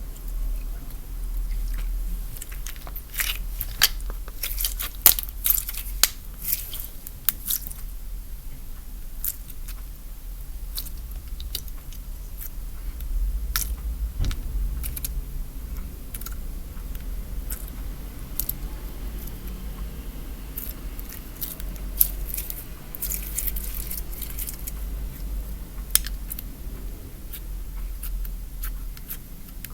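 Old slime, gone stiff with age, being squeezed and pulled by hand, giving off sticky clicks and crackling pops that come in clusters, over a steady low hum.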